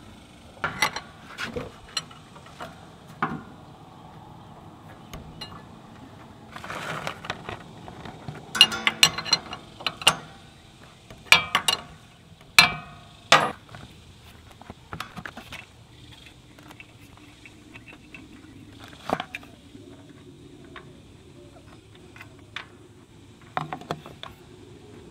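Metal wrench clicking and clinking against the 24 mm oil drain bolt and engine casing of a Vespa LX scooter as the bolt is worked loose, an irregular string of sharp clicks, busiest in the middle and sparser near the end.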